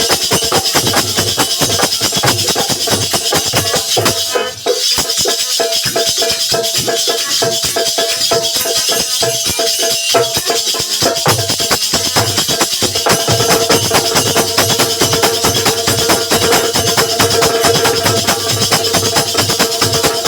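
Bundeli folk percussion playing a fast, steady rhythm: dholak and nagadiya drums with the jingle of jhinka and manjira cymbals, and a held note over it that shifts lower about thirteen seconds in. The playing breaks off briefly about four seconds in.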